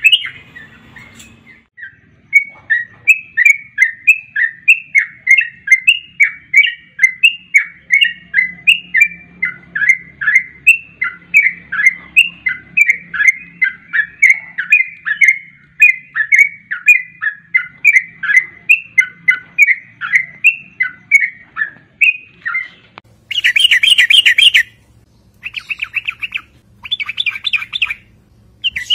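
Yellow-vented bulbul (trucukan) calling: a long run of short chirps, about two to three a second, followed near the end by a few loud, fast chattering bursts.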